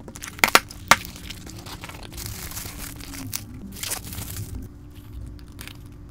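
A cardboard shipping box being opened by hand: a few sharp snaps of the flaps in the first second, then plastic bubble wrap crinkling and rustling as it is pulled out and handled.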